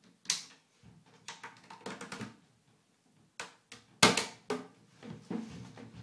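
Plastic clicks and knocks from a toy Miele Novotronic washing machine being handled, its control-panel buttons and knob pressed and turned by hand. There is an irregular run of sharp clicks, with the loudest knock about four seconds in.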